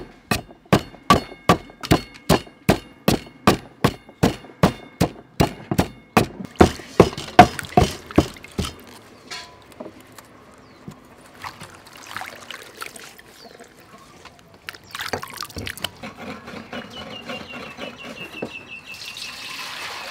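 A wooden pestle pounds chili, garlic and sugar in a clay mortar, about three even strikes a second, stopping about eight seconds in. After that, water splashes and pours as vegetables are rinsed in a steel basin.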